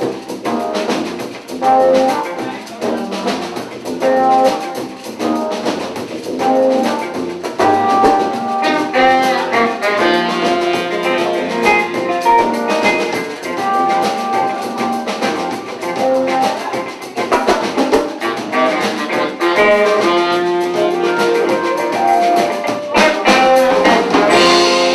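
Live band playing an instrumental jazz number on saxophone, electric guitar, keyboard, drum kit and tuba. A short repeating figure opens the passage, then busier melodic lines take over over a steady drum beat.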